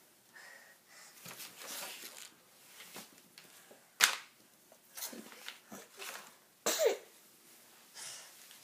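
Hard plastic parts clicking and knocking as orange cannon pieces are fitted onto a large plastic toy dinosaur, with rustling handling noise; the sharpest click comes about four seconds in, and a short, louder noise comes near the end.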